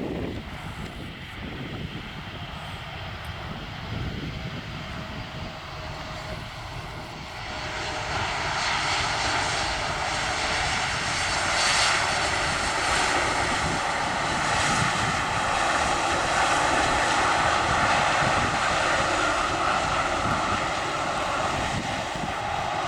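Boeing 787-10 Dreamliner's jet engines on landing approach: a low rumble grows much louder about a third of the way in and stays loud, with a steady whine over the engine noise.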